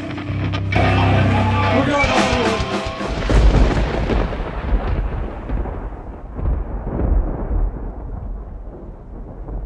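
A hardcore band's live song ends with the last chord ringing out. About three seconds in, a deep, rolling rumble takes over and slowly fades.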